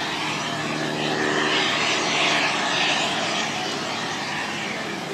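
Radio-controlled model jet flying past: a steady rushing jet roar that grows loudest about two to three seconds in, then eases.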